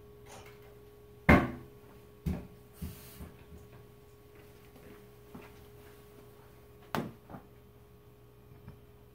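A few hard knocks and clunks, like objects being handled and set down on a tabletop. The loudest comes about a second in, more follow over the next two seconds, and a pair comes near the end.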